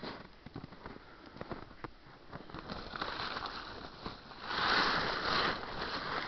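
Camouflage tarp rustling and crinkling against the microphone. Scattered light crackles come first, and the rustle swells about three seconds in, loudest near five seconds.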